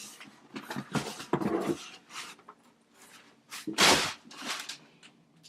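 Packaging being handled during an unboxing: irregular rustling and scraping bursts, the loudest about four seconds in.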